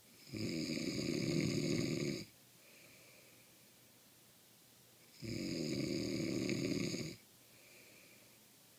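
A man snoring tremendously: two long, loud snores about five seconds apart, each lasting about two seconds, with a faint breath after each.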